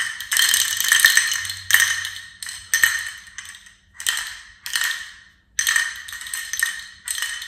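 A small ball rattling and clicking inside a clear plastic cube-maze fidget as it is tilted and shaken. The clicks come in irregular bunches, each with a short ringing tail, and pause briefly twice in the middle.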